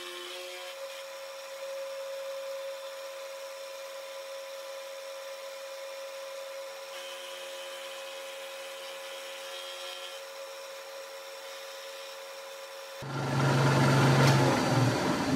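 Vertical milling machine running with an end mill cutting a slot in a metal block: a steady spindle tone with the rubbing, grinding noise of the cut, which grows a little louder twice. About 13 seconds in, a loud rush of compressed air starts from an air blow gun aimed at the cut.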